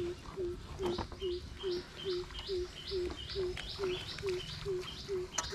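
Birds calling: a steady run of short low hoots, about two and a half a second. From about a second in, a higher up-sweeping chirp repeats at the same pace.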